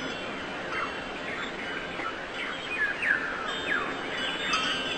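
Many birds chirping, with short falling calls overlapping one another, over a soft ringing like wind chimes that grows clearer near the end.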